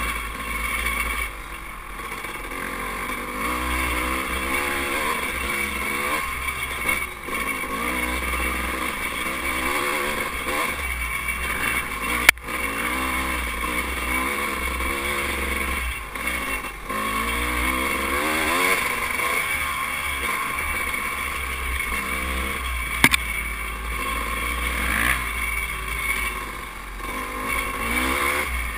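Dirt bike engine running along a trail, its pitch rising and falling again and again as the throttle is opened and closed, over steady wind rumble on the camera microphone. Two sharp knocks come about twelve seconds in and about twenty-three seconds in.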